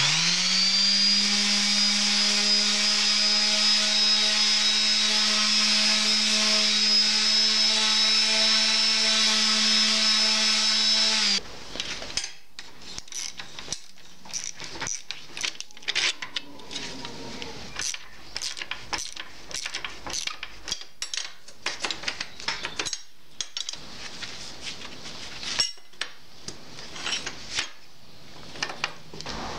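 Electric drill spinning up quickly to a steady high whine, running for about eleven seconds and then stopping abruptly. After it, a string of irregular metallic clicks and rattles as steel brackets, bolts and nuts are handled and fitted by hand.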